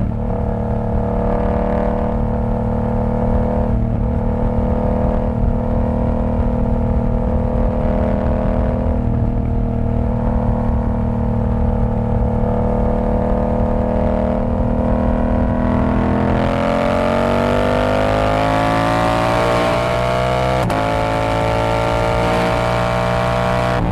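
Yamaha R7's parallel-twin engine running through a TOCE exhaust with the dB killer removed, holding steady revs while riding, then accelerating with a rising pitch from about two-thirds of the way in, with a brief break about three-quarters in.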